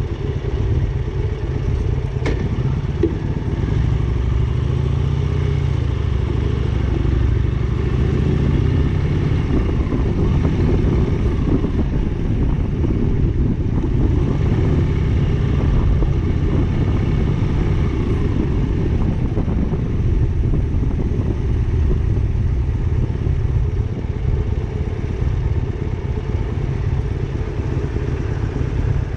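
Motorcycle engine running steadily while riding. Its pitch rises and falls a little with throttle in the first half, and there is one sharp click a couple of seconds in.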